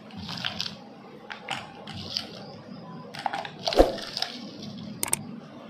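Chunks of ice handled in a steel pot and dropped into a steel bowl of milk and 7-Up soda: a series of irregular clinks and knocks of ice on steel, the loudest a little before four seconds in.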